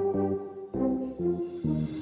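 Background music: a run of short held notes, changing pitch several times a second with brief breaks between them.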